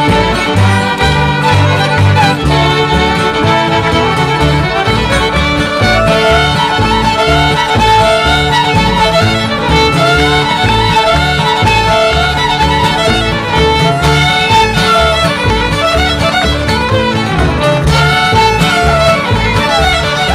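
A string band plays a lively mountain dance tune, with a fiddle carrying the melody over guitar and a steady bass pulse. The dancers' clogging taps on the stage floor sound along with it.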